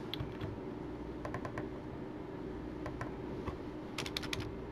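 Computer keyboard keys clicking in short bursts of typing: a few keystrokes near the start, a quick run about a second and a half in, and a denser flurry near the end, over a faint steady hum.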